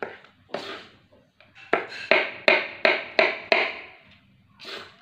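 Kitchen knife slicing bird's eye chilies on a cutting board, each stroke knocking on the board: a few scattered cuts, then a steady run of about six cuts, roughly three a second, through the middle.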